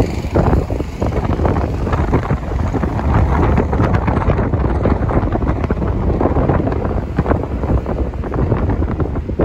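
Wind buffeting the microphone: a loud, uneven rumble that is strongest in the low range.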